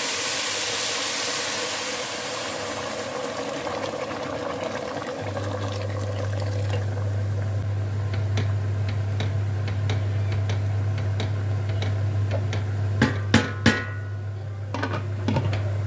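Boiling water poured into a stainless steel pot of rice and toasted vermicelli, a rushing splash that fades over the first few seconds. The wooden spoon then stirs the rice in the water, with a few sharp knocks near the end, over a steady low hum that starts about five seconds in.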